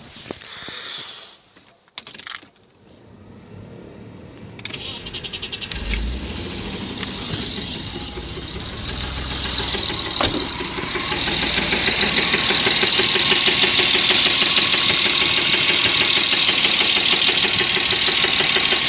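BMW M50 inline-six cranked by the starter about five seconds in and catching, then running steadily and growing louder before settling, with a knock in the engine that the owner cannot place. A few soft clicks and rustles come before the start.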